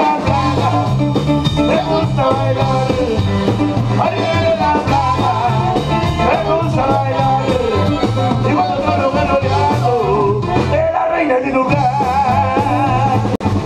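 Norteño band with saxophone playing a rock-and-roll tune live, in a passage with no sung words. Button accordion and alto saxophone play over guitar and drums. The sound drops out briefly near the end.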